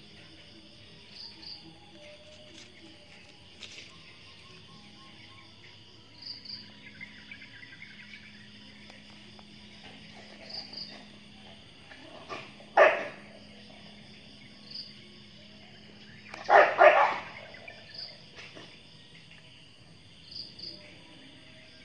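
Insects chirping, a short high chirp every couple of seconds over a steady low hum. Two loud, short sounds break in: one about 13 seconds in, and a quick cluster of two or three around 17 seconds.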